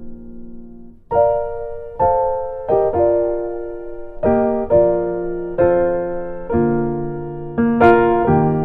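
Background music on a piano-like keyboard. A held chord fades out, and about a second in, single notes and chords start being struck every half second to a second, each ringing and dying away.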